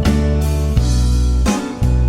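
Background music led by a strummed acoustic guitar, with low bass notes under it.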